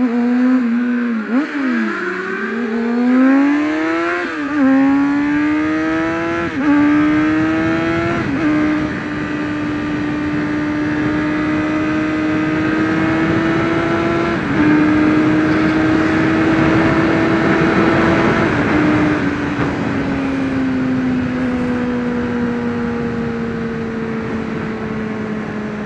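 2003 Honda CBR600RR's inline-four engine accelerating hard through the gears, its pitch climbing and then dropping at each of about four upshifts in the first eight seconds. It then holds a steady pitch at highway speed with wind rushing on the helmet microphone, and the pitch slowly falls near the end as the bike eases off.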